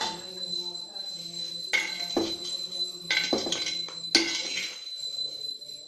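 Metal slotted spoon clinking and scraping against a clay pot while hot embers are spooned onto a leaf-wrapped parcel: about five sharp, ringing clinks in the middle, over a steady high whine.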